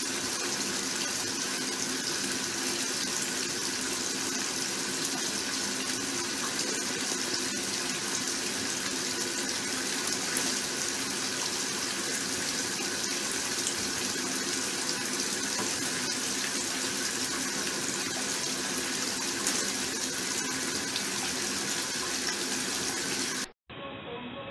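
Steady rush of running water, with a few faint steady low hum tones beneath it. It cuts off suddenly near the end, giving way to a quieter hum.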